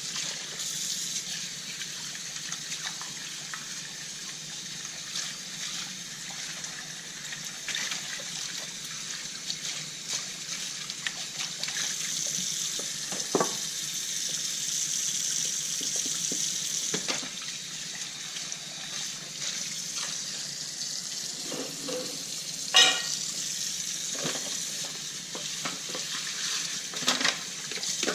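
Kitchen tap running steadily into a sink during dishwashing, with occasional knocks and clinks of dishes; the loudest, a sharp clink, comes about three-quarters of the way through, and a few more knocks come near the end.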